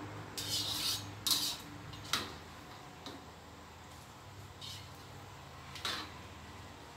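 Metal cooking utensils, a slotted ladle and a spatula, scraping and clinking against a stainless steel bowl and a wok in a series of short strokes, the first two the loudest.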